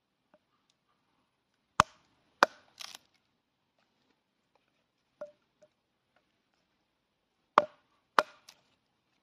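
Cold Steel Trail Hawk tomahawk chopping into wood: two sharp chops about two seconds in with a brief rattle of lighter knocks right after, then two more chops near the end.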